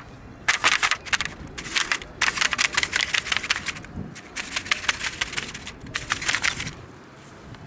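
Dry cat food kibble clattering and crunching close to the microphone, in four bursts of rapid clicks, the longest about a second and a half long.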